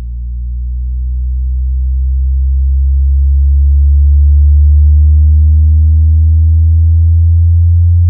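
Logitech Z523 subwoofer playing a sine-wave test tone as a slow frequency sweep, rising steadily in pitch from about 58 Hz to 85 Hz. The tone swells louder over the first half, then holds steady.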